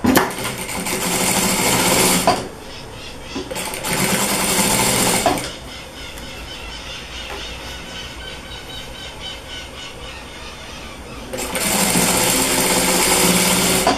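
Sewing machine stitching a folded fabric binding strip onto a patchwork border in three short runs of about two seconds each, with quieter pauses between them.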